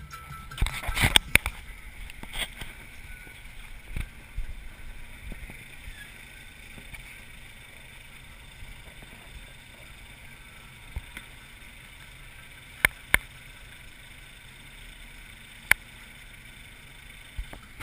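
Off-road truck driving slowly along a rough dirt trail: a steady low rumble, with a cluster of sharp knocks and rattles in the first two seconds and a few single sharp clicks later as it jolts over the ruts.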